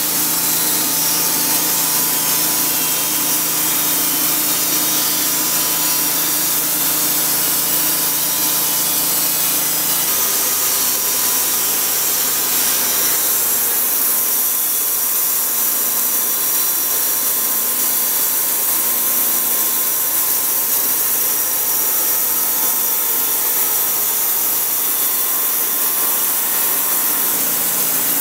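Homemade band sawmill running on its 22-horsepower V-twin engine, the band blade sawing lengthwise through a hemlock log. The sound is steady and loud, and its tone shifts about ten seconds in and again about three seconds later.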